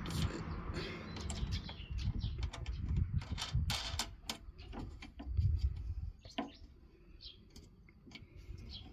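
Irregular clicks and knocks of a plastic mower part and screws being handled and fitted, busiest in the first six seconds and sparser after.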